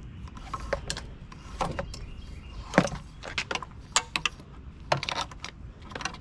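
Irregular clicks, taps and rattles of a throttle cable being pulled and worked through the crowded handlebar and frame of a Honda Ruckus scooter, the cable housing knocking against other cables and parts, with one sharper knock a little under halfway through.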